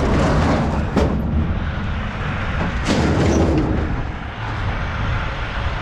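Scrap metal being shoved and settled into place in a load, with two heavy knocks about a second and three seconds in, over a steady low rumble.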